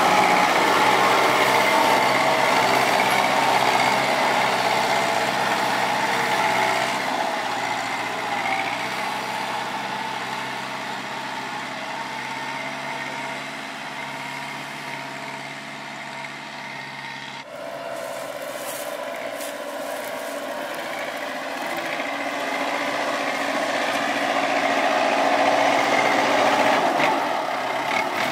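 Kubota tractor's diesel engine running as the grab tractor works, loud at first, quieter through the middle, then after a sudden cut about two-thirds through rising again as it lifts a bundle of sugarcane.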